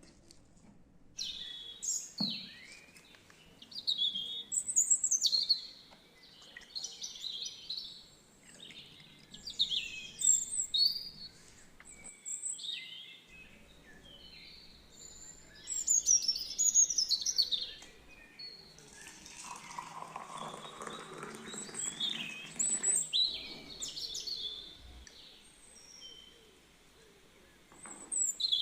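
Birds chirping and singing in short, quick phrases, with a soft rushing noise for a few seconds past the middle.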